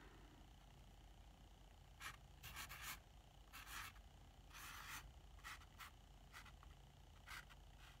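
Black Sharpie felt-tip marker writing on watercolor paper: a series of faint, short, irregular strokes of the tip, beginning about two seconds in.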